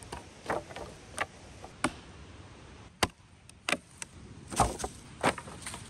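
Dead branches snapping, cracking and knocking together as firewood is gathered: about seven irregular sharp cracks, with a dull heavy thud about four and a half seconds in, over dry leaves rustling.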